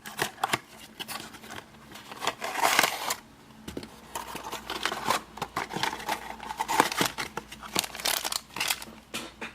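Packaging being opened and handled: plastic and cardboard rustling and crinkling, with many sharp clicks and taps.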